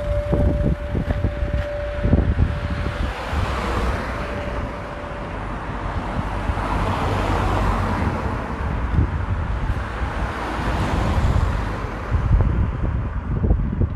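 Wind buffeting the microphone over steady vehicle and road noise, with a swell of noise in the middle. A steady single tone sounds for the first three seconds and briefly again a little later.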